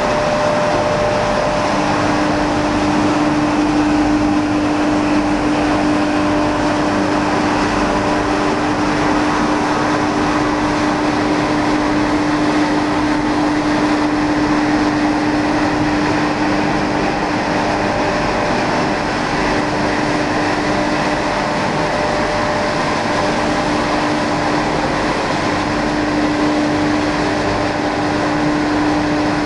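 Rotary drum dryer and centrifugal exhaust fan of an organic fertilizer production line running: a loud, steady machine noise with a steady hum that comes in about two seconds in.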